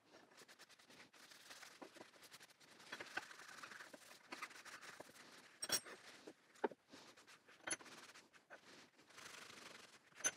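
Cloth rag rustling and rubbing over the steel parts of a Stanley No. 1 hand plane, wiping off excess penetrating oil, with a few sharp clicks of the metal parts being handled on the wooden bench.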